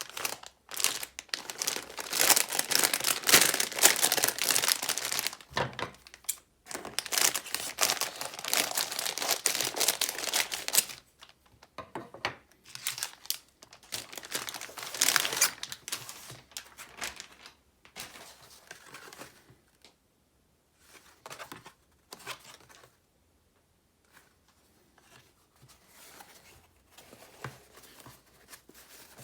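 Packaging being crinkled and torn open by hand, in long loud rustling bouts for the first ten seconds or so. After that come a shorter bout and then quieter, scattered handling rustles with brief silent gaps.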